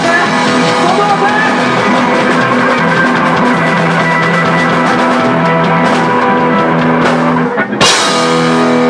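Live rock band playing loud: electric guitars holding chords over a Yamaha drum kit. Near the end the band drops out for a moment and comes back in on one hard accented hit.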